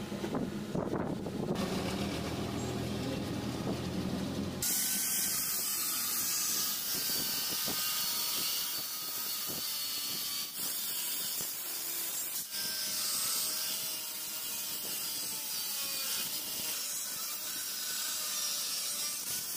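Angle grinder with a thin abrasive cut-off wheel cutting into a steel file: a loud, even high hiss over the motor's faint whine, starting suddenly a few seconds in after a low background rumble.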